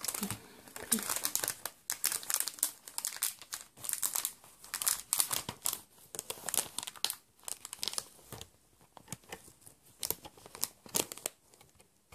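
Clear plastic sleeves on CD album packaging crinkling and crackling as they are handled, in quick irregular crackles that thin out near the end.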